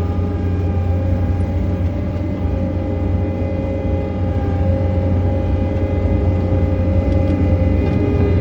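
John Deere 317 skid steer's diesel engine running steadily, heard from inside the operator's cab: a steady low hum with several held tones above it.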